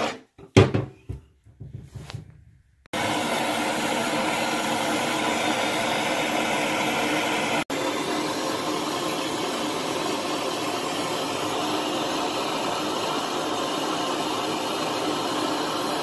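Handheld gas torch burning with a steady hiss as it heats copper pipe joints on a brass shower valve for soldering. In the first three seconds the sound is broken by several short silences and one sharp loud knock about half a second in.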